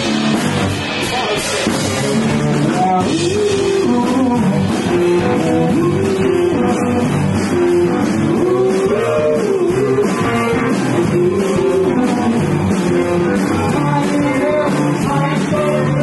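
Live rock band playing loud, with electric guitar, bass guitar and drums, a wavering melodic line riding over a steady drum beat.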